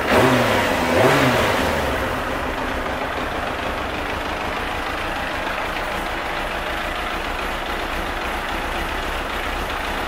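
Kawasaki ZX-9R's inline-four engine given two quick throttle blips, the first just after the start and the second about a second in, then settling to a steady idle.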